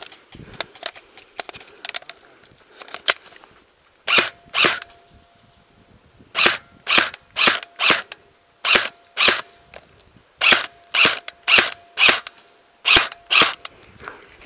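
Airsoft gun firing semi-automatic shots: a few faint pops, then from about four seconds in about fourteen loud, sharp cracks, mostly in quick pairs about half a second apart.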